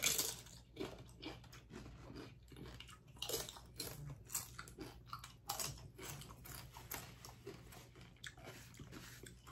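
A person biting into a taco and chewing close to the microphone: the bite, the loudest sound, comes at the very start, then a long run of irregular small crunches and mouth smacks.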